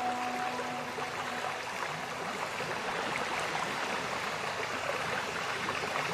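A held musical chord fades out in the first second or so, leaving a steady rushing, crackling noise like running water.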